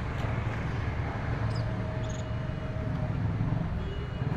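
Steady low outdoor background rumble, like street traffic, with a couple of faint short high chirps about a second and a half and two seconds in.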